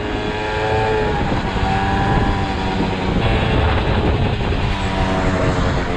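Motorcycle engine running under way, heard from the rider's position, with road and wind rush under it. The engine note holds steady and shifts about a second in and again about three seconds in.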